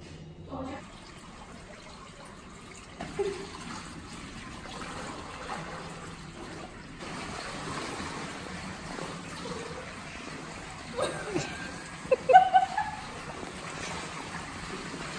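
Steady trickling and lapping water of an indoor swimming pool as a person swims through it, with a few short vocal sounds near the end.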